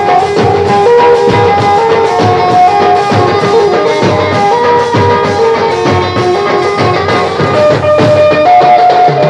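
Tasa party band playing loudly: tasa and bass drums beat a dense, fast rhythm under a melody of held notes that steps up and down.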